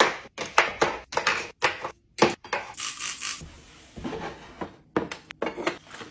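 Kitchen utensils clacking and clattering as they are set down into wooden drawer organizer trays, a quick series of sharp knocks, with a short sliding hiss about three seconds in.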